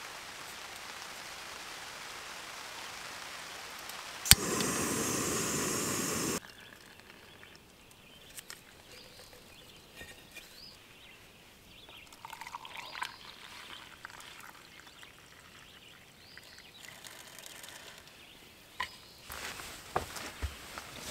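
Backpacking canister stove hissing steadily under its pot. After a sharp click about four seconds in, hot water pours into an AeroPress coffee maker for about two seconds. Then come faint scattered clicks and knocks of cups and cooking gear being handled.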